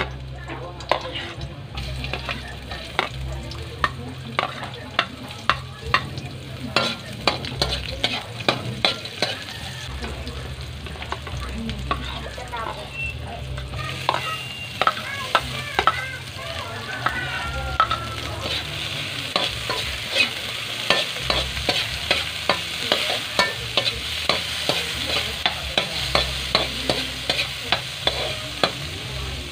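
Metal spatula scraping and tapping against an aluminium wok while garlic, onion and ginger sauté in hot oil, with many sharp clicks of the stirring. The sizzle grows stronger from about halfway.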